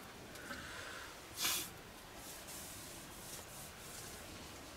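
A short, sharp sniff through the nose about a second and a half in, over a faint steady hiss inside a small tent.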